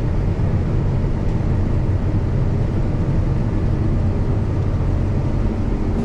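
Combine harvester running steadily while cutting soybeans: an even engine and machinery drone, heard from inside the cab.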